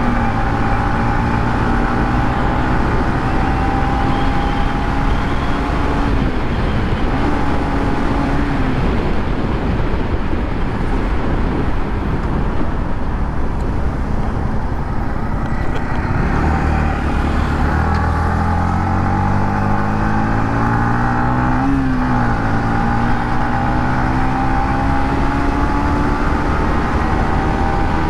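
Yamaha MT-15's 155 cc single-cylinder engine through its stock exhaust, running at cruising speed under wind and road noise. The revs ease off and pick up again a few times, with a long steady climb in the second half.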